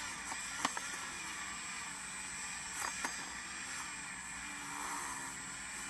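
Dremel rotary tool running steadily, cleaning surface rust off the Jeep's front axle at the U-joint, with a constant high whine and a few short ticks.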